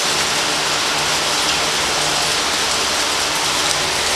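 Grizzly G0602 10x22 metal lathe running with a steady, even hiss and a faint low hum.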